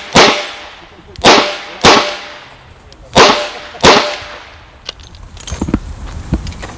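Handgun shots fired at a match stage: five sharp cracks, mostly in quick pairs about half a second apart, each with a short echoing tail, then a few faint clicks near the end.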